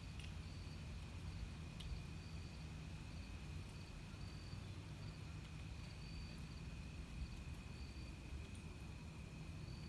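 Faint chorus of crickets at night: a steady high trill with a higher chirp repeating about once a second, over a low background rumble.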